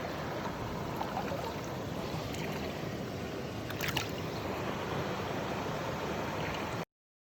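Steady rush of a mountain stream's flowing water, with a brief sharp click about four seconds in. The sound cuts off suddenly near the end.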